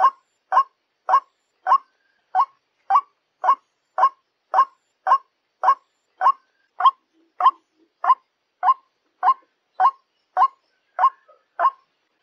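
White-breasted waterhen calling a short, harsh note over and over at an even pace, a little under two a second, the repeated call used as a lure to draw waterhens in for trapping.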